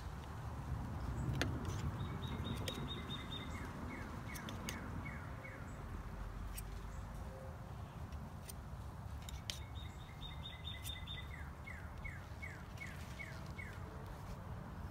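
A songbird singing the same phrase twice, each about three seconds long: a quick run of short high notes, then a string of notes that slur downward in pitch. Under it runs a steady low outdoor rumble with scattered faint clicks.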